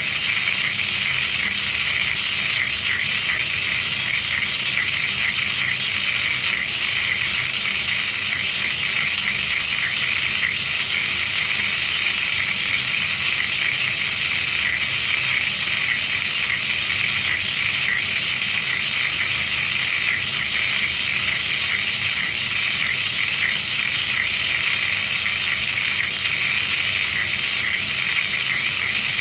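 DIY sinker EDM cutting with 40 kHz spark pulses and no flushing: a loud, steady, dense crackling hiss of electrical discharges between electrode and workpiece.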